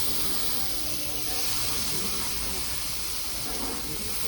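Hamburg steak searing on a hot iron plate: a steady sizzling hiss of fat and steam.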